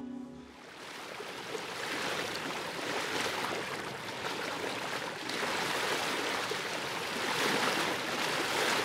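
Sea water washing and lapping: an even rushing hiss that swells and eases a few times, with no engine note.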